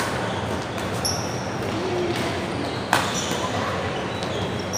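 Badminton rackets striking the shuttlecock during a rally: two sharp hits, one at the start and one about three seconds in. Shoes give short squeaks on the court floor between them.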